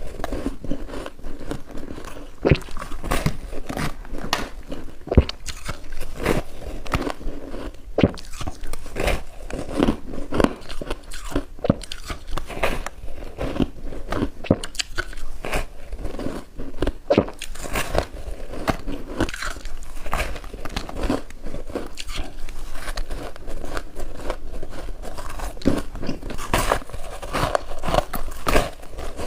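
A person biting into and chewing white snow ice close to the microphone: repeated irregular crunches and cracks as the ice breaks between the teeth.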